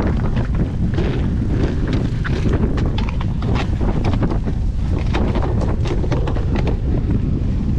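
Strong wind buffeting the microphone as a steady low rumble, with frequent short clicks and knocks on top.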